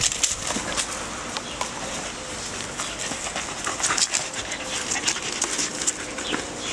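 A Belgian Malinois jumping again and again for a ball held up on a cord, its leaping and scuffling heard as many short clicks and rustles.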